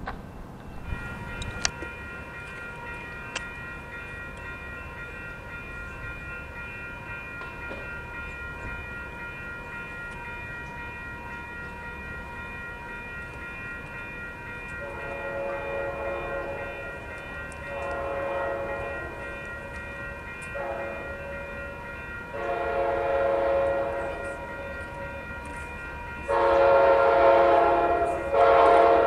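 Passenger train's horn blowing the grade-crossing signal as it approaches: two long blasts, a short one and a long one about halfway through, then louder, longer blasts near the end as it gets closer. A steady high whine runs underneath.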